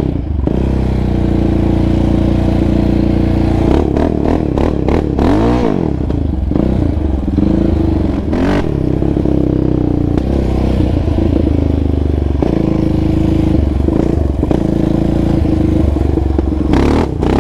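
Yamaha Raptor 700R ATV's single-cylinder four-stroke engine, fitted with an aftermarket Monster exhaust, running while being ridden. It holds a steady pace, with the revs rising and falling a few times, most clearly around five seconds in. A few short knocks can be heard around four to five seconds in, once near the middle and once near the end.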